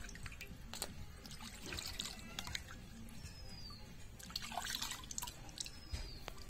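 Scattered drips and small splashes of water as hands rinse crabs in a steel pot of water.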